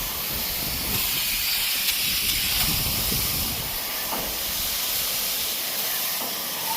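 Steady hiss of diluted coil-cleaning solution being sprayed from a sprayer bottle onto an air conditioner condenser coil.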